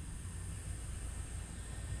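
Steady low rumble and faint high hiss of background noise, with no distinct event.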